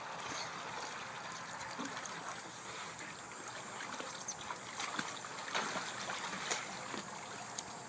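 Steady trickling of water, with a few faint ticks near the end.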